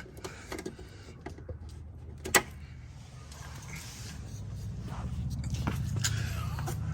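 A sharp plastic click about two and a half seconds in, with a few fainter ticks, as a screwdriver pries a licence-plate light housing out of a truck's bumper. A low steady hum grows louder through the second half.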